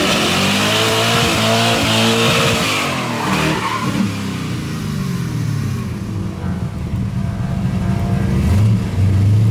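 Race-prepped Chevrolet GMT400 pickup's engine revving hard through a tight turn, with tyre noise in the first three seconds. The revs then fall back and run lower before rising again near the end.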